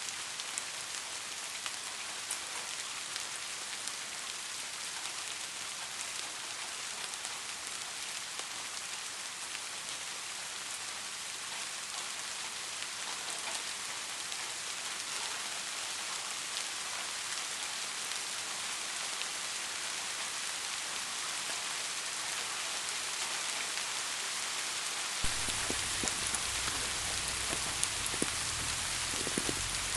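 Steady rain falling and pattering on surfaces, a dense even hiss speckled with individual drop ticks. About 25 seconds in it becomes slightly louder, with a low rumble underneath and a few sharper drop hits.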